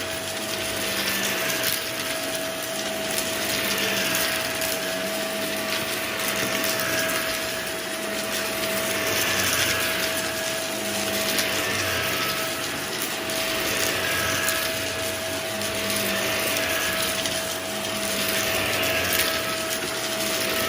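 Vacuum cleaner running on the floor with a steady whine, its noise swelling and easing every few seconds.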